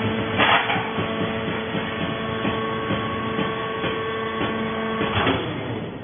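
Vertical hydraulic baler running, its hydraulic pump giving a steady whine as the press cycles on a coconut-fibre bale. Two short, loud rushes of noise come about half a second in and about five seconds in, and the whine stops just after the second.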